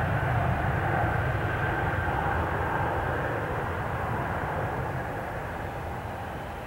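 Airbus A320 jet engines at takeoff thrust: a broad roar with a faint high whine, fading steadily as the airliner lifts off and climbs away.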